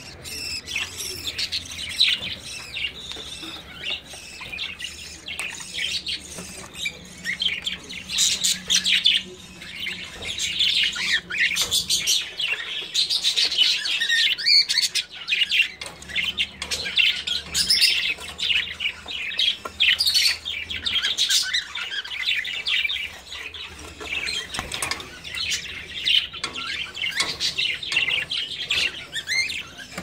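A flock of budgerigars chattering: many short, high-pitched chirps and warbles overlapping without a break.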